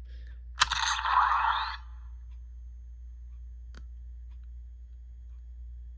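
CSM Amazons Register toy bracelet switched on with a click, its speaker giving a short burst of hissing electronic sound effect with a rising sweep, lasting about a second. After that there is only a low hum, and another click near the end of the second second.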